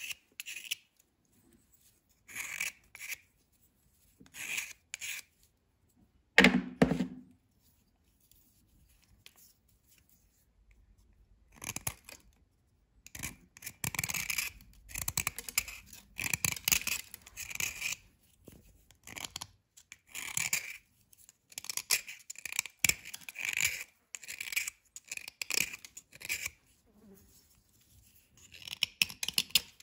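A small metal knife blade scraping and shaving a dry white bar in short strokes. The strokes come in brief groups with silent gaps at first, then almost without a break through the second half; one loud thump a little after six seconds is the loudest sound.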